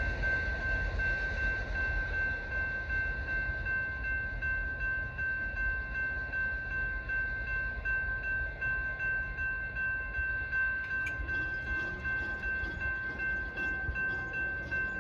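Railroad grade-crossing warning bell ringing steadily over a low rumble that slowly fades. The crossing is still active as the gates begin to lift near the end.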